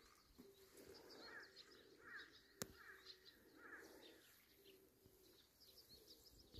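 Faint bird calls repeating every second or so over near-quiet ambience, with one sharp click a little past halfway.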